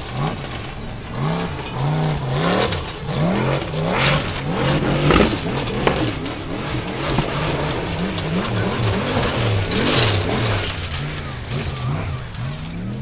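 Formula Offroad racing buggy's engine revving hard, its pitch rising and falling again and again as the wheels spin in loose sand.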